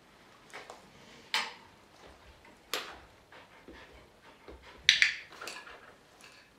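A few sharp clicks from a hand-held dog-training clicker, the loudest a quick click-clack pair about five seconds in.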